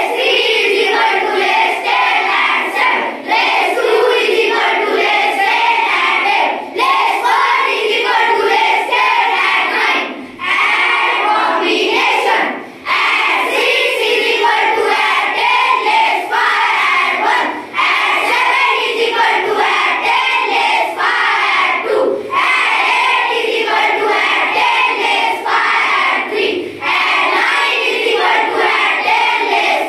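A large group of children chanting abacus formulas in unison, a sing-song group recitation broken by short pauses every few seconds.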